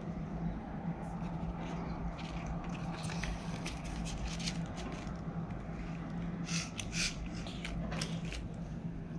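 Clear plastic binder pocket and laminated card being handled: short rustles and crinkles of plastic as the card is slid into the pocket, loudest about six and a half to seven seconds in, over a steady low hum.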